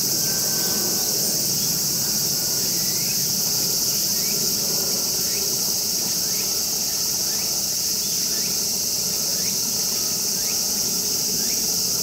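Dense, steady chorus of insects shrilling without a break, high-pitched. Faint short rising chirps recur about once a second beneath it.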